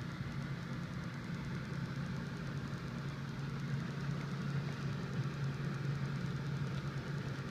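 Steady low mechanical hum in the background, even in level throughout.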